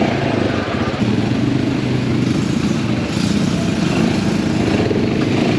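ATV (quad bike) engine running steadily.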